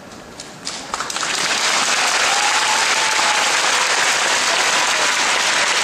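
A large audience applauding. The clapping starts about a second in, quickly swells, and then holds steady.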